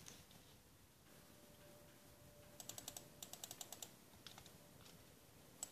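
Faint computer keyboard key taps: a quick run of about ten taps a little past halfway, a few more just after, and a single sharper tap near the end.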